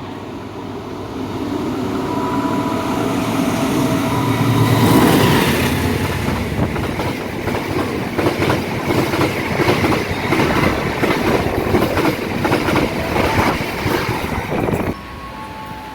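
A train passing close by. Its rumble builds to a peak about five seconds in, followed by a long run of rhythmic clickety-clack as the wheels cross the rail joints. The sound cuts off suddenly near the end.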